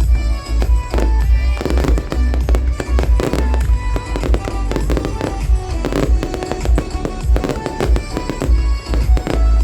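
Fireworks display: aerial shells bursting in rapid, overlapping succession, with deep booms and sharp cracks, over music playing throughout.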